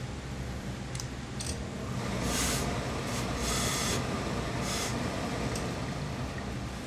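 Hose-fed tailor's steam iron giving four short hisses of steam while pressing a suit jacket hem, bonding it with double-sided fusible tape; a couple of light clicks come just before, over a steady low hum.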